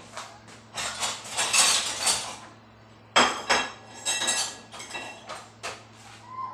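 Dishes and cutlery clattering and clinking as they are handled. About three seconds in comes a sharp clatter, and a brief metallic ringing follows it.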